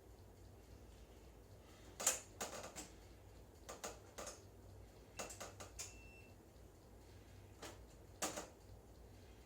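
Scattered sharp clicks and light knocks, irregular, with one short high beep about six seconds in, over a low steady hum.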